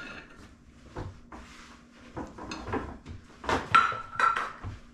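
Kitchen utensils clinking and knocking: a metal measuring cup, spatula and spoons against a glass mixing bowl while mayonnaise is scraped in. A series of short clinks, the loudest coming about three and a half to four seconds in with a brief metallic ring.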